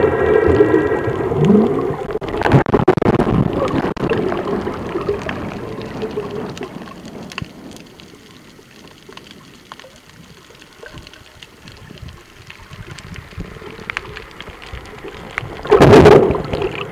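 Underwater noise picked up by a camera below the surface: crackling and water sounds that are loudest in the first few seconds, then fade, with one short loud rush of noise about a second before the end.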